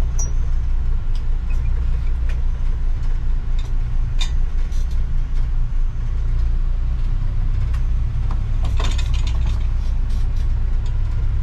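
Boat engine running steadily at low speed while the boat is steered off a dock, with a few short knocks along the way.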